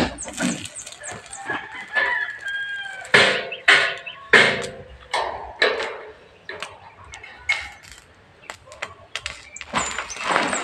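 Chickens: a rooster crowing, with a string of short, loud clucks about three to five seconds in and another loud call near the end.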